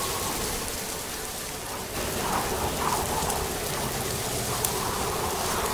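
Steady rain falling, an even hiss with a single sharp tick about four and a half seconds in.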